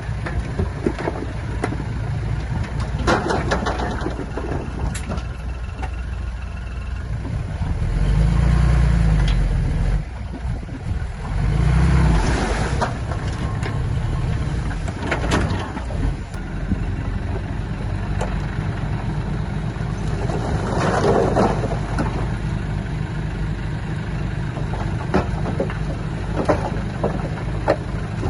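Komatsu D31P bulldozer's diesel engine running under load, with scattered clanks and knocks. The engine surges louder twice, about eight and twelve seconds in.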